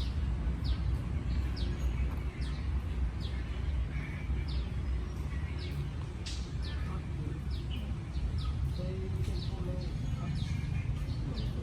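A rapid series of short, high, downward-sliding chirps, about two a second, over a steady low rumble.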